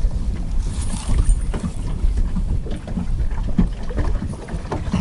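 Water lapping and knocking against the hull of a small moored fishing boat, with dull knocks at irregular intervals over a steady low rumble.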